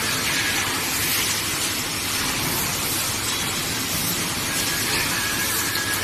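Steady hiss of factory noise as a handheld wire-harness tape-wrapping machine is worked along a harness, with a faint high whine coming in near the end.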